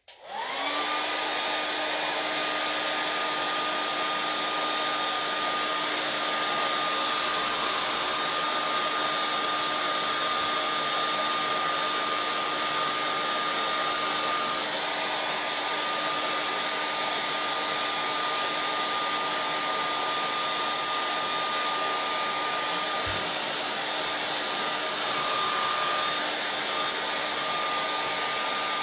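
A handheld hair dryer switches on, comes up to speed within about a second, then runs steadily with a rush of air and a steady whine. It is drying a fresh coat of paint.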